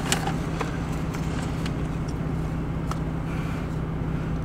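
Steady low hum of a car running, heard from inside its cabin, with a few faint clicks scattered through it.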